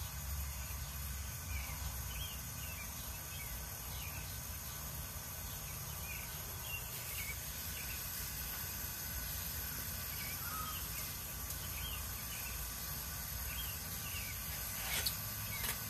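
Gas ring burner's open flame running with a steady low rumble, while small birds chirp now and then. A short light click near the end.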